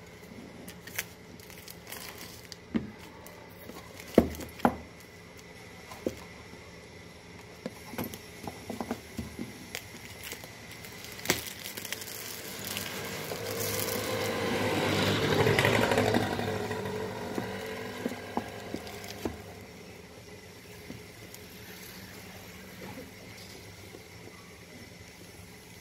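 A phone's cardboard box being handled and its clear plastic shrink-wrap peeled off, with scattered taps, clicks and crinkles. Midway, a louder rushing sound builds and fades over about seven seconds.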